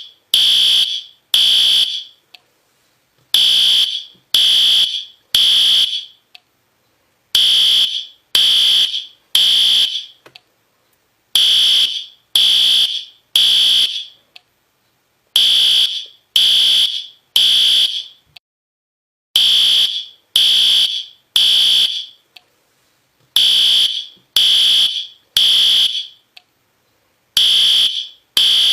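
System Sensor P2R fire alarm horn sounding in the temporal-three pattern: three loud, high-pitched blasts of about half a second each, then a pause, repeating about every four seconds. This is the standard building-evacuation signal.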